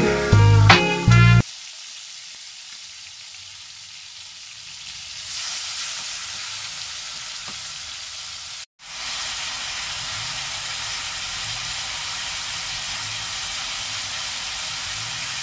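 Pork steaks sizzling in their sauce in a wok: a steady frying hiss that grows a little louder about a third of the way in and breaks off for a moment just past halfway. Background music plays for the first second and a half.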